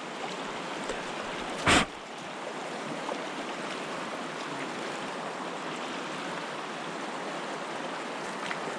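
River water rushing steadily, with one short, loud bump a little under two seconds in.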